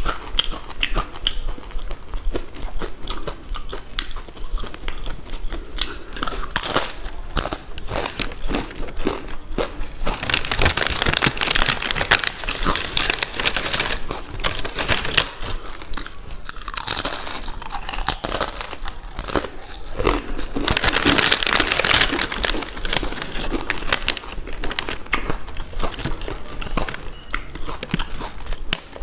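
Close-miked crunching and chewing of Balaji potato chips, a steady run of sharp crisp crunches. Two longer stretches of denser hissing crackle come about ten seconds in and again about seventeen seconds in.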